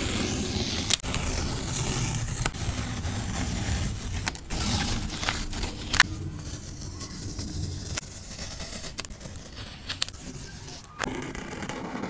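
Washi tape being peeled off paper: a crackling, scraping rip with sharp clicks, louder in the first half and quieter after about six seconds.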